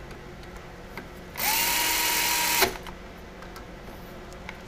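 Cordless drill driving one of the solenoid screws on a 7.3 Powerstroke HEUI injector. The motor starts about a second in, its whine rising quickly and then holding steady for just over a second, and it stops sharply as the screw runs down.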